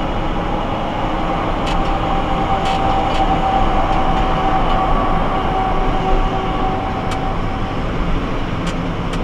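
Steady road and engine noise inside a moving vehicle's cabin at highway speed, with a thin steady whine through the middle and a few faint ticks.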